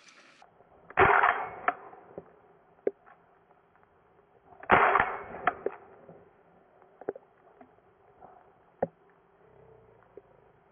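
Two shotgun shots about four seconds apart, each a sharp bang with a short echoing tail, with small clicks and rustles between them.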